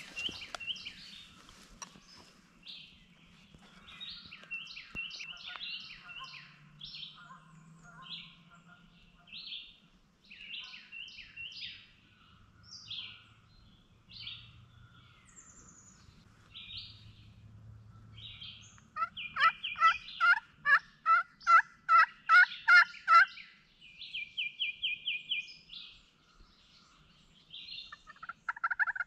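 Small birds chirp throughout. About twenty seconds in, a turkey calls loudly in an even series of about a dozen notes lasting some four seconds, and another series starts right at the end.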